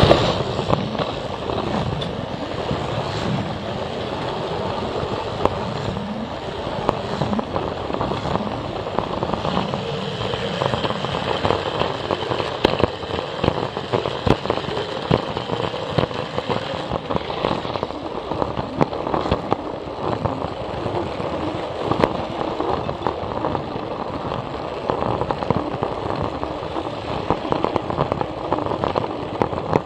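Plarail toy train running on plastic track, heard close up: a continuous rattle with frequent irregular clicks as the wheels run over the track.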